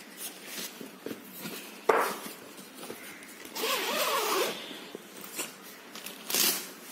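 Zipper on a padded fabric carrying bag being pulled open in short runs, the longest about a second long midway, with rustling as the bag is handled. There is a sharp knock about two seconds in.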